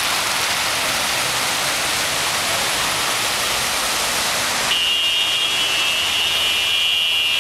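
Steady rushing noise of a heavy downpour and cars ploughing through a flooded road. About two-thirds of the way in, the rush drops back and a steady high-pitched tone starts and holds.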